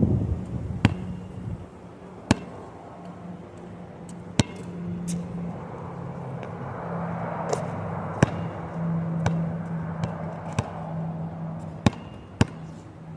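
A basketball striking the court in sharp, irregular impacts, about one every one to two seconds. Wind gusts over the microphone, with a steady low hum underneath.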